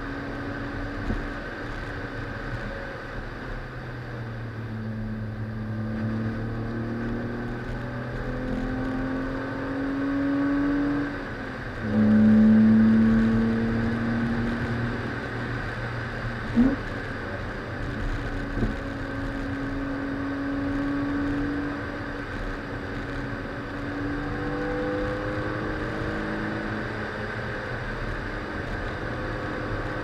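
BMW E36 328i's 2.8-litre straight-six engine under hard driving, its note rising as it accelerates and falling as it eases off, over steady road and tyre noise. It is loudest just after a brief dip about eleven seconds in. Two short sharp knocks come a couple of seconds apart past the middle.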